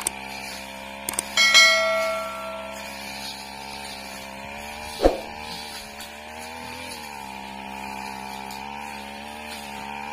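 Backpack brush cutter engine running steadily at cutting speed. About a second and a half in, something hard is struck with a sharp clack, leaving a metallic ringing tone that fades over about a second. A second sharp knock comes about five seconds in.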